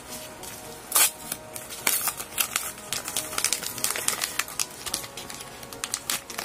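Yellow padded bubble mailer crinkling and crackling as hands pull its flap open and handle it, a run of sharp rustles with a louder crackle about a second in.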